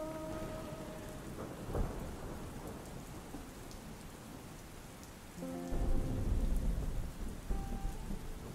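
Steady heavy rain with thunder: a sharp clap about two seconds in and a deep low rumble in the second half. A held music chord fades out in the first second, and soft notes of another tune come in about five and a half seconds in.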